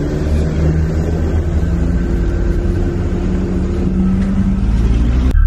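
Steady low rumble with an engine-like hum, like a motor vehicle running, cut off abruptly just before the end.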